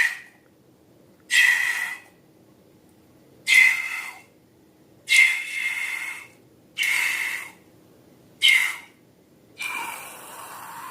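Short breathy bursts of hissing air, seven in a row, about one every second and a half, each fading out within a second.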